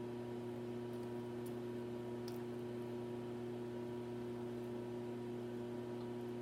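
A steady low hum with a few faint clicks, the soft mouth sounds of chewing.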